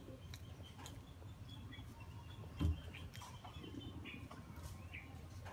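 Faint, scattered bird chirps over a low outdoor rumble, with a single dull thump about two and a half seconds in.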